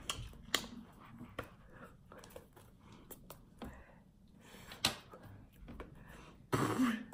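Scattered soft clicks and taps of hands striking and brushing together while signing in American Sign Language, with a louder breathy vocal sound near the end.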